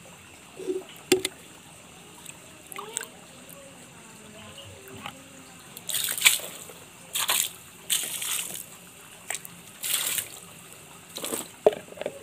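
Diluted EM4 solution poured from a plastic dipper onto wet mud in a tarp-lined pond, splashing in about five short pours in the second half. A couple of sharp knocks come about a second in.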